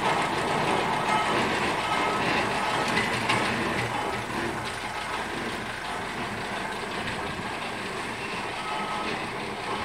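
Steam traction engine travelling along the road and heading away, its sound steadily growing fainter.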